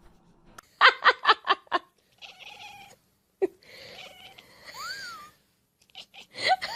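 A domestic cat meowing: a quick run of about five short mews, then a longer meow whose pitch rises and falls, with more short mews near the end.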